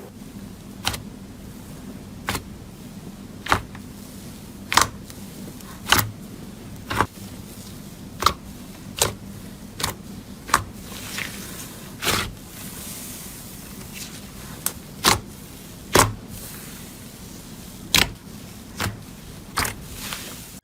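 Slime being handled by hand: a run of sharp clicks, irregular but roughly one a second, over a faint steady hum.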